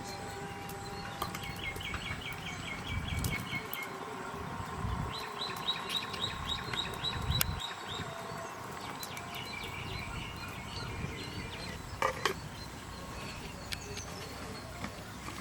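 A bird calling in three runs of quick, evenly repeated high chirps, each run lasting about two seconds, over a faint steady high hum. A single sharp knock comes near the end.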